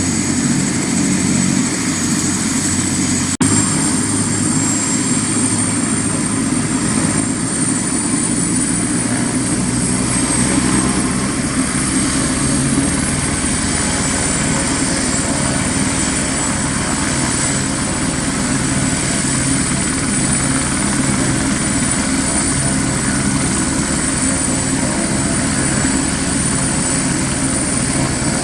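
Airbus AS350 B2 Esquilo helicopter running, with the steady high whine of its Turbomeca Arriel 1D1 turboshaft over the rotor's rapid beat. The whine rises slightly about eight seconds in and settles again a few seconds later. There is a single brief click about three seconds in.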